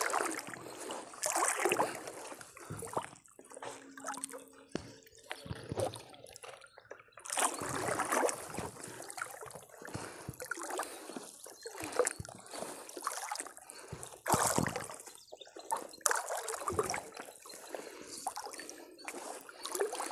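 Fine fishing net being hauled hand over hand out of the water into a boat, water trickling and splashing off the wet mesh in irregular bursts.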